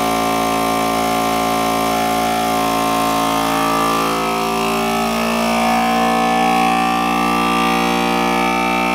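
Countertop vacuum sealer's pump motor running steadily, drawing the air out of a plastic bag of deer ribs. Its tone shifts slightly about four to five seconds in as the bag pulls tight around the meat.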